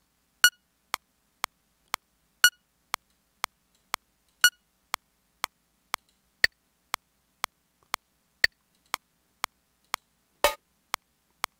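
Studio One 4 software metronome clicking at 120 BPM, a short click every half second, with a louder accent on beat one of each four-beat bar. The accent sound is switched while it plays: a short beep three times, then a clave twice, then the Kristal sound near the end.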